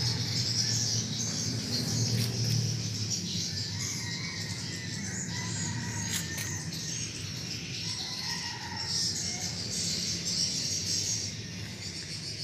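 Many birds chirping and twittering at once in a steady background chorus.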